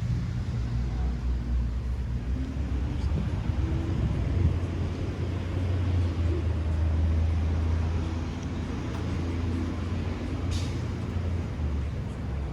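Steady low rumble of a motor vehicle running, with a faint sharp tick about ten and a half seconds in.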